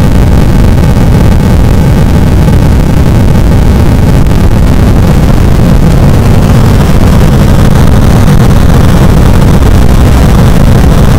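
Harsh noise music: a dense wall of distorted electronic noise at full volume with no let-up, heaviest in a low rumble with a thinner hiss above it.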